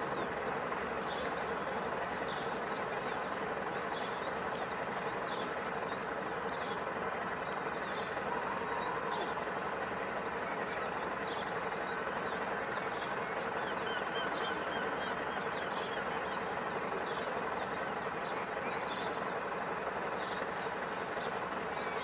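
Gull chicks peeping with many short, high cheeps over and over, against a steady rushing background noise.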